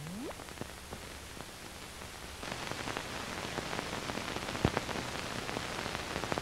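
Hiss and crackle of an old film print's soundtrack with no programme sound on it, with scattered clicks and pops. The hiss grows louder about two and a half seconds in.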